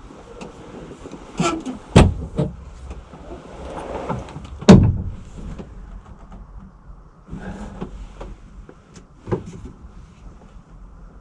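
Several sharp knocks and thumps, the loudest about two and nearly five seconds in, with rustling and scraping between them.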